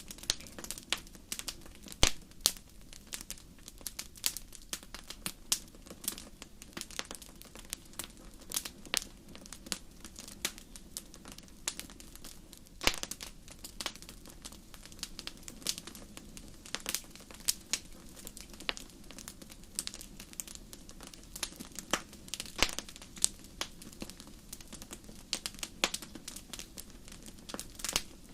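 Wood fire crackling: irregular sharp pops and snaps, several a second with an occasional louder crack, over a steady low background.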